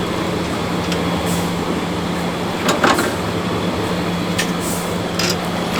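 Boat engine running steadily, a constant low hum under a hiss of wind and water, with a few short knocks about halfway through.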